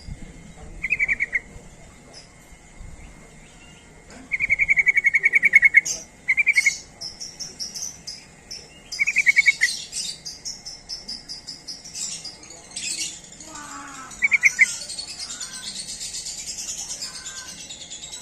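Yellow-vented bulbul (trucukan) calling: short bursts of rapid bubbly notes, repeated several times, the longest lasting about a second and a half. From about six seconds in, higher twittering chatter runs underneath.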